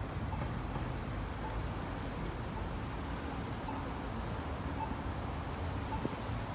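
City street traffic: a steady rumble of passing cars, with faint short beeps about once a second.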